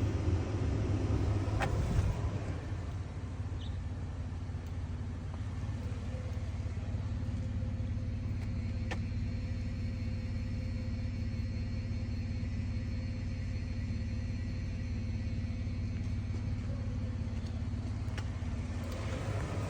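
Steady low rumble of a motor vehicle running, with a faint steady hum and a few light clicks.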